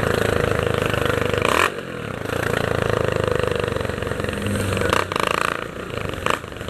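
Single-cylinder four-stroke engine of a Honda CG 150 Titan with a short straight-through exhaust, running loud under way. The throttle is shut about one and a half seconds in and the sound drops, then picks up again, with short loud blips of throttle near the end.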